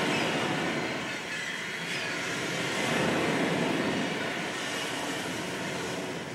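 A steady, loud noise without a clear pitch, played as part of the dance's soundtrack, beginning to fade near the end.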